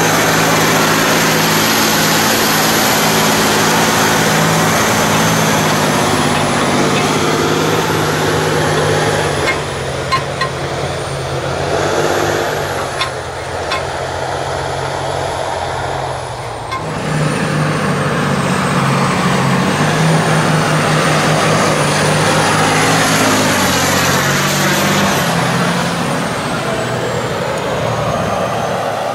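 Large John Deere tractor engines running steadily as they pull loaded two-trailer beet trains, with a thin high whistle over the engine note. A few sharp knocks about a third of the way in, and a change of engine sound about halfway through.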